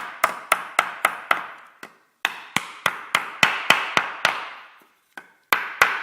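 Hammer tapping the edges of a connector to fold them around the end of a timber noggin. The blows are quick and sharp, about three to four a second, each with a brief ring, in bursts broken by two short pauses.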